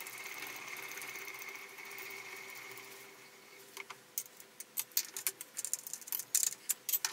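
Milling machine spindle running with a steady whine that fades out over the first three seconds. From about four seconds in come irregular sharp metallic clicks and taps as the workpiece and chips in the vise are handled by hand.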